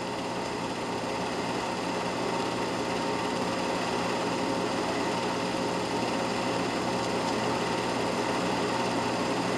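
8 mm film projector running: a steady mechanical whir with a faint hum and hiss, unchanging throughout.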